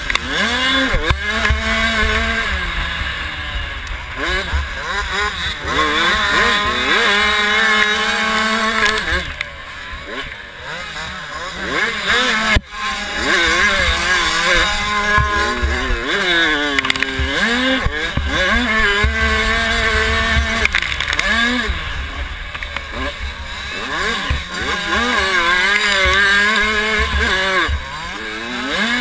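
A 65cc two-stroke motocross bike's engine, heard close from a helmet camera, revving up and falling back over and over as the rider works the throttle and gears. The engine eases off briefly just before halfway, then there is one sharp knock.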